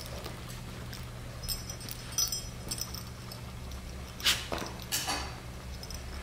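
A Scottish terrier moving about and rummaging close by, making a few short, scattered rustles and clinks, the loudest about four seconds in. A steady low hum runs underneath.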